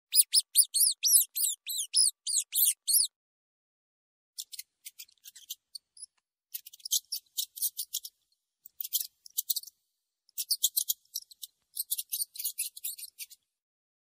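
Rat squeaking: a quick run of high-pitched squeaks, each rising and falling in pitch, about four a second for the first three seconds, then after a pause, scattered clusters of shorter squeaks.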